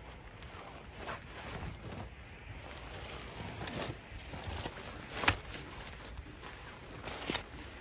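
Rustling and handling noises with scattered light knocks, a sharp click about five seconds in and another near the end.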